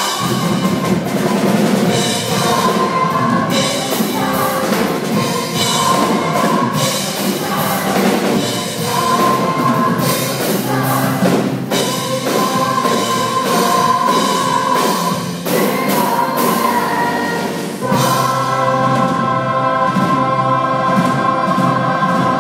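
Live stage performance of a choir singing with a band and drum kit, sustained sung notes over a steady drum beat. Near the end the drums fall away and the choir holds long chords.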